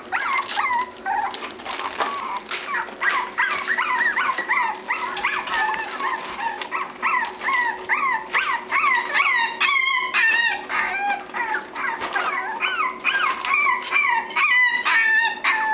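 A litter of six-week-old Cavalier King Charles Spaniel puppies whining and yipping, with many short high-pitched cries that rise and fall, several a second, overlapping without a break.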